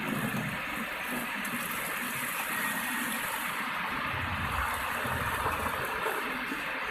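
Water pouring in a steady stream from the tilted stainless-steel tank of a vacuum emulsifying mixer into a plastic tub, as the tank is emptied after a water test.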